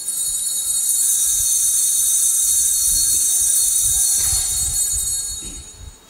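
Bells ringing continuously with a high, shrill tone, starting suddenly and fading out after about five seconds.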